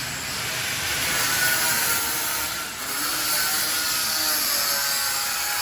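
A power tool running steadily, a whining motor over a hiss: renovation work.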